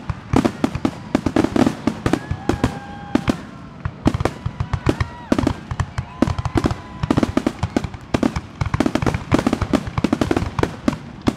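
Aerial firework shells bursting in quick succession at a fireworks display: a dense run of sharp bangs and pops that keeps going throughout.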